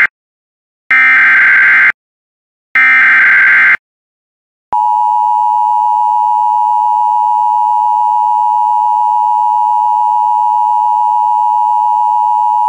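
Emergency Alert System activation: the end of one SAME header data burst, then two more harsh, buzzing data bursts of about a second each with short gaps between. About a second after the last burst, the steady two-tone EAS attention signal starts and holds for about eight seconds. Together they herald a severe thunderstorm warning.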